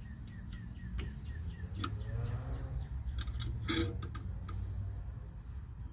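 Light, irregular metallic clicks and ticks as a C-clamp is screwed in against a disc brake caliper, pushing the caliper piston back into its bore.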